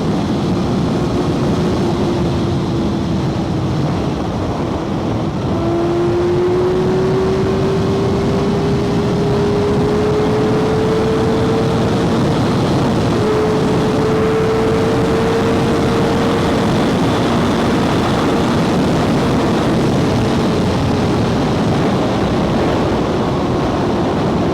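Kawasaki Ninja ZX-6R 636's inline-four engine running on the road, its note climbing slowly and steadily for about ten seconds from around five seconds in as the bike accelerates, over a constant rush of wind noise.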